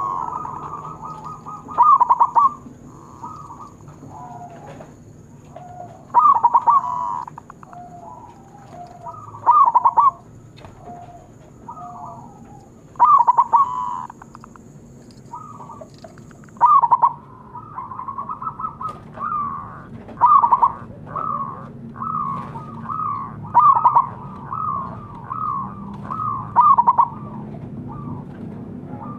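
Zebra doves cooing: loud, rolling coo phrases repeat every few seconds, with fainter, lower coos in between. About halfway through the phrases come faster, in an almost unbroken run.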